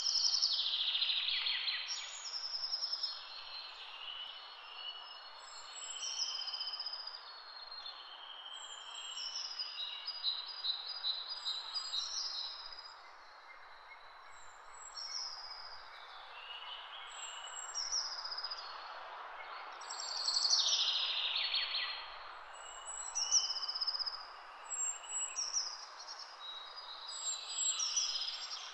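Birdsong ambience: many birds chirping and whistling over a steady background hiss, with a few louder downward-sweeping calls near the start and about two-thirds of the way through.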